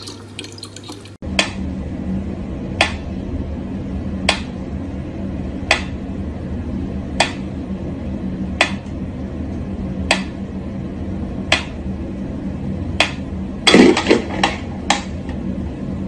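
Mechanical pyramid metronome ticking slowly, one sharp tick about every second and a half, over a steady low hum. About fourteen seconds in comes a brief cluster of louder knocks, the loudest sound. The first second is a tap running water.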